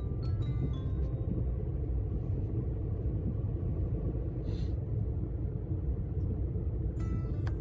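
Steady low rumble of a car driving along a road, heard from inside the cabin: engine and tyre noise. Light mallet-like background music trails off in the first second and comes back near the end.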